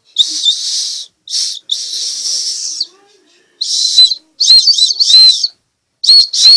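A girl whistling close to the microphone: first three breathy, airy blows with little tone, then from about three and a half seconds in a few short, high whistled notes that rise and fall.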